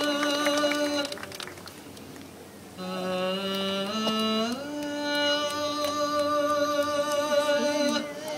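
Show music of long held notes with rich overtones. It fades to a low lull about a second in, then comes back near three seconds, with the notes stepping up in pitch midway.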